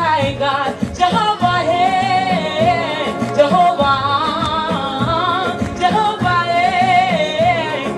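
Live gospel praise music: a woman singing long, wavering melodic lines with a band behind her, the bass line repeating low underneath.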